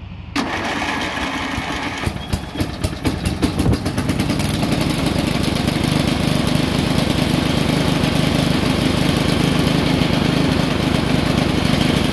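Briggs & Stratton 12 HP I/C riding-mower engine being started by its electric starter, newly fitted with a replacement plastic starter gear. The starter whirs for about a second and a half, then the engine catches with a few uneven firing pulses and settles into steady running.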